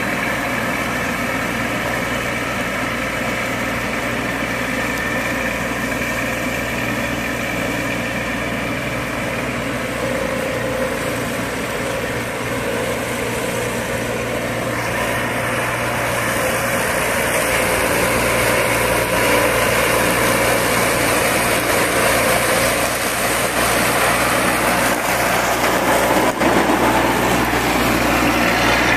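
Baroness LM320AF ride-on front-deck mower running steadily while it cuts tall grass. It gets louder in the second half.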